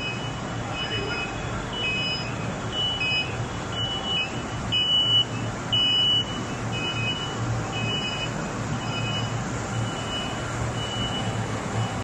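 Induction heating furnace line running: a steady low hum under a high-pitched tone that comes and goes in short beeps, loudest twice about five and six seconds in.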